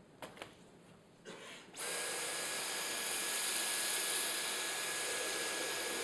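A few light clicks, then about two seconds in the Dyson Cyclone V10 cordless stick vacuum switches on suddenly: its Dyson Digital Motor V10 runs with a steady high whine over a rush of air as the cleaner head works a carpet.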